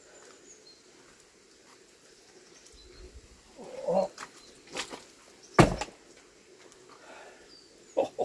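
Knocks from stones and debris being pulled out of a muddy drainage trench and dropped, the sharpest a little past halfway and a lighter one near the end. A short grunt comes just before them.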